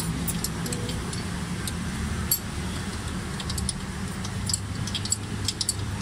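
Scattered sharp metallic clicks and clinks of hand tools working on engine bolts, coming in irregular clusters over a steady low hum.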